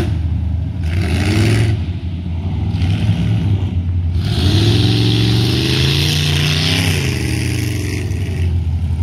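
An off-road mud-bogging vehicle's engine running loud under a low, steady hum. About four seconds in it revs up, climbing in pitch for a couple of seconds, then drops back near the seven-second mark, with a loud rushing hiss over the revving.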